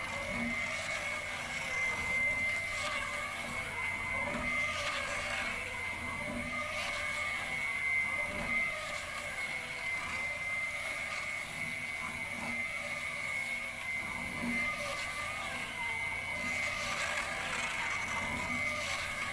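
Electric cocoa paste grinding machine running steadily, with a constant high whine over its grinding noise and a few faint irregular knocks.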